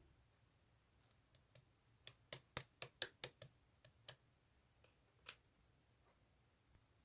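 A run of about fifteen short, sharp clicks at an irregular, quick pace, thickest around the middle, then stopping.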